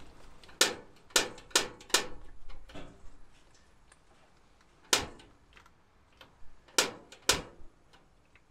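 Sharp metallic clicks and knocks at a propane cabinet smoker's burner as the gas is turned on and the burner is lit: four in quick succession in the first two seconds, then single clicks about five, nearly seven and seven and a half seconds in.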